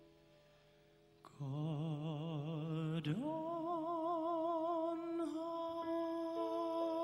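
A man's solo singing voice over a Steinway grand piano: after a quiet second of fading piano, the voice comes in on a low held note with wide vibrato, then slides up to a higher note about three seconds in and holds it, with soft piano chords beneath.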